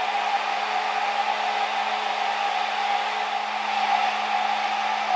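Hair dryer running steadily while drying a small dog's wet coat: an even rush of air with a steady hum under it.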